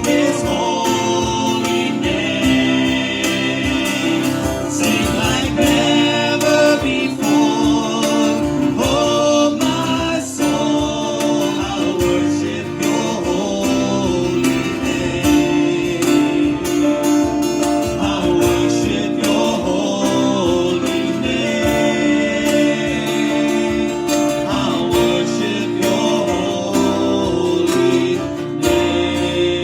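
Worship song: singing over guitar accompaniment, at a steady level throughout.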